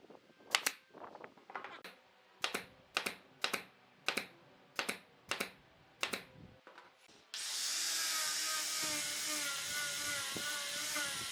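A series of sharp knocks, about eight spaced unevenly over the first seven seconds, then a handheld power tool starts abruptly and runs steadily, its pitch wavering slightly.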